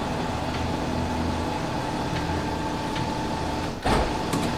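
Car lift's electric pump motor running with a steady hum, raising the vehicle body off its rear suspension. There is a single clunk about four seconds in.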